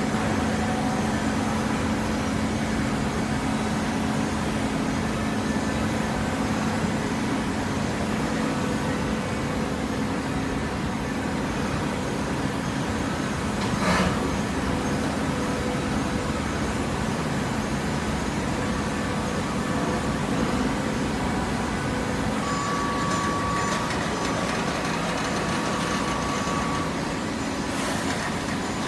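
Hydraulic waste-paper baler running: a steady mechanical hum with a constant low tone, one sharp knock about halfway through, and a thin higher tone added near the end.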